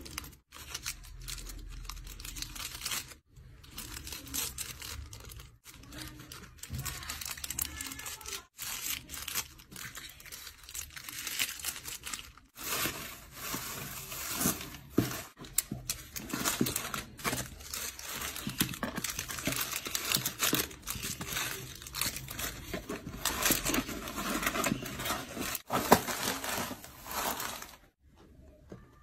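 Small plastic zip-lock bags crinkling as they are handled, then shredded-paper packing filler rustling and crackling as it is pushed around a cardboard box, busier in the second half.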